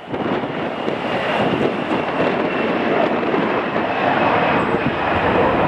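Jet airliner engines running: a steady rushing roar with a faint high whine, mixed with wind buffeting the microphone.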